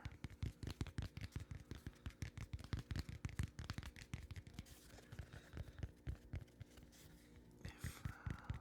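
Soft, rapid, irregular tapping and scratching close to the microphone, several light knocks a second.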